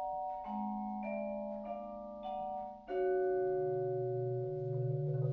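Vibraphone and marimba playing slow, ringing chords, with notes changing about every half second. About three seconds in, a louder, fuller chord enters with low notes added.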